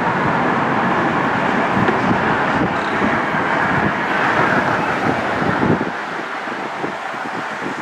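Steady rumble of a passing vehicle, easing off about six seconds in.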